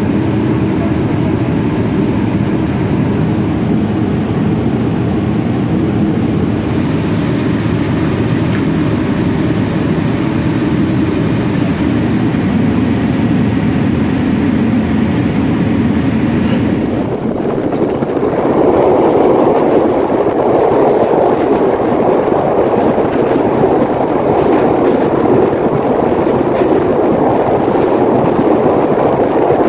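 Passenger train standing at a station with a steady low engine hum and a faint high whine. About 17 seconds in this gives way to the rumble of the train running on the rails, wheels clattering over the track.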